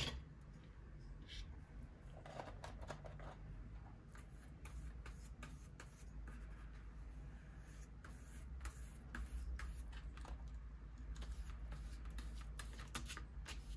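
Faint rustling and light taps of paper being handled and stuck down on a journal page, over a low steady hum.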